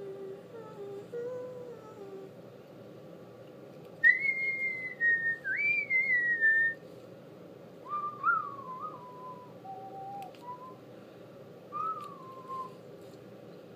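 A person whistling a wandering tune. The whistle is loudest and highest about four to seven seconds in, then comes back in quieter, lower phrases that step down in pitch.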